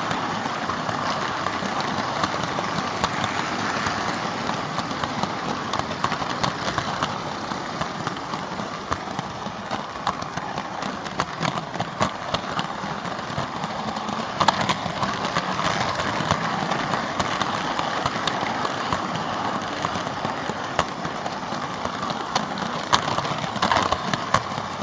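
Märklin H0 model train running on metal M-track: a steady whirr from the locomotive's electric motor and rolling wheels, with frequent irregular clicks as the wheels pass over rail joints and points.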